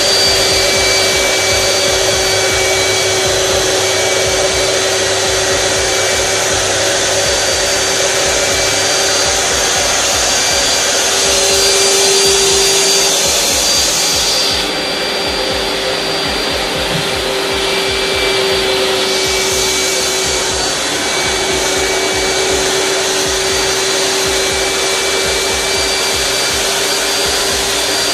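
Carpet-extraction machine running: a vacuum motor's steady whine and rush of air with a rotating power brush working the carpet. About midway the high hiss drops away for about four seconds, then comes back.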